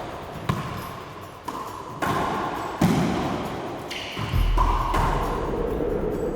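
Racquetball shots: the ball hitting racquets and the court walls, several sharp thuds a second or so apart in an echoing court, with background music.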